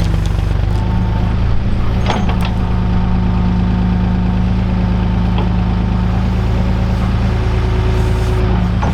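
A heavy machine's engine running steadily while clearing roots, with a few sharp cracks about two seconds in and again near the end.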